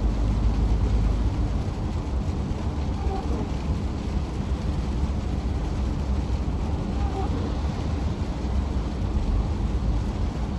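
Scania S500 truck under way: its diesel engine and tyres make a steady low drone.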